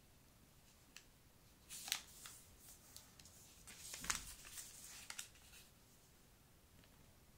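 Sheet of origami paper being folded and creased by hand: several short, soft rustles and crinkles, the loudest about four seconds in, with near quiet between them.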